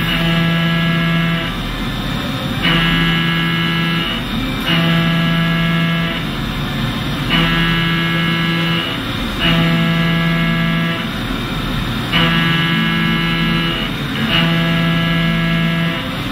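Indexable-insert milling cutter cutting metal: a steady pitched whine that comes in and stops about eight times in a regular pattern, each cut lasting about a second and a half, as the cutter enters and leaves the work on successive passes.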